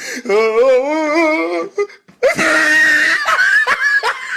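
A man laughing hysterically: a long, wavering, high-pitched laugh, a short break about two seconds in, then a louder, raspy, shrieking laugh.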